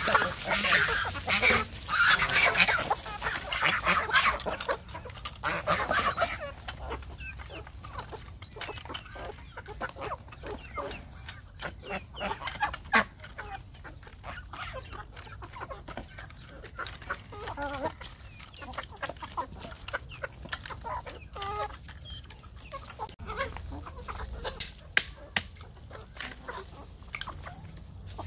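Flock of chickens clucking and calling loudly for the first six seconds or so. Then quieter scattered clucks and many small clicks as they peck food off the ground, with a few sharper clicks near the end.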